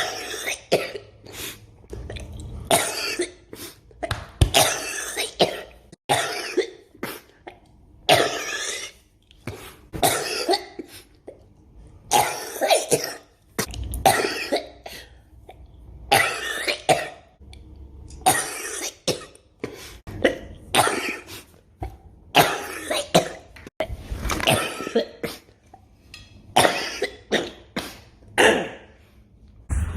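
People coughing over and over: about thirty short coughs, often in pairs or quick runs, with brief pauses between them.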